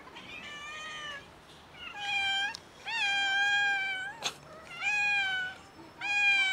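Hungry street cats meowing loudly for food: about five long meows in a row, with a sharp click about four seconds in.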